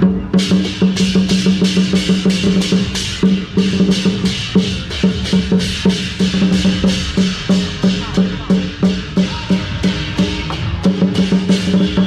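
Chinese lion dance percussion: a large drum with clashing cymbals beating a fast, steady rhythm.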